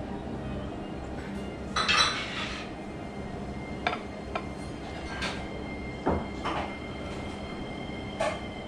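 Small sake glasses and dishes knocking and clinking on a table: a handful of short clinks, the loudest about two seconds in, over a steady low background hum.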